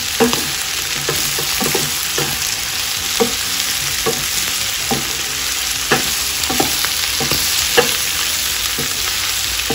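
Goat tripe and intestines frying in oil with tomatoes and masala in a non-stick pan: a steady sizzle, broken by short scraping knocks of a wooden spatula stirring about once a second. It is the 'chap chap' sound of the masala frying through well.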